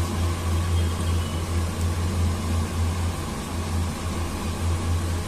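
A steady low mechanical hum with an even hiss over it, unchanging throughout.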